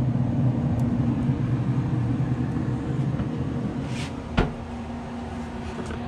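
Steady low hum of a running Pit Boss Austin XL pellet grill's fan, with a single knock about two-thirds of the way through, after which the hum is a little quieter.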